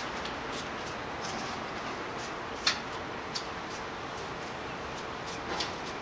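Steady background hiss with a scattering of short, sharp clicks and ticks; the loudest comes a little under three seconds in.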